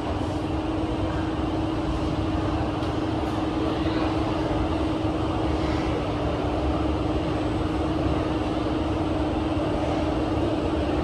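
Passenger cabin of a Kawasaki–CRRC Qingdao Sifang CT251 metro train running between stations: a steady rumble of wheels on rail with a constant low hum.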